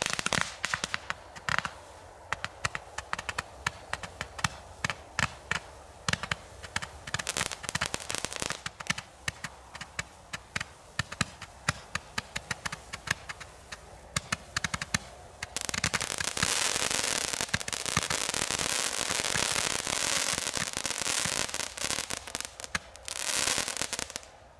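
A 140-shot Roman candle firing: a rapid run of sharp pops, several a second, for about fifteen seconds. It then changes to a dense, continuous crackle from its crackling comets, which dies away just before the end.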